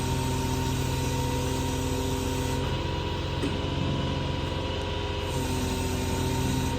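An engine running steadily at a constant speed: an even, pitched mechanical drone with no change in speed.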